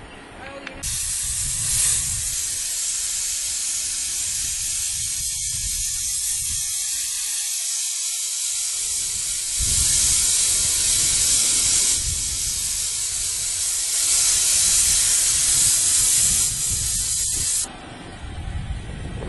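Pressure-pot sandblaster nozzle hissing as it blasts abrasive onto a cast bronze sculpture. The hiss starts abruptly about a second in, runs steadily with two louder stretches, and cuts off shortly before the end.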